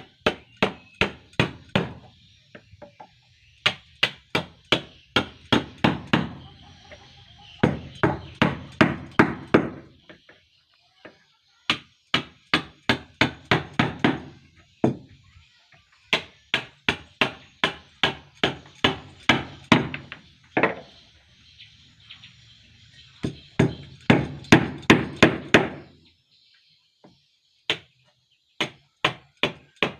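Hammering in quick runs of sharp blows, about three a second, broken by short pauses: hand tool work on a boat under construction.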